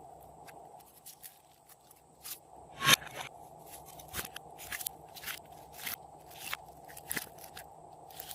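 Glossy slime being squeezed and worked by hand, giving a series of short crackling clicks and pops, the loudest about three seconds in.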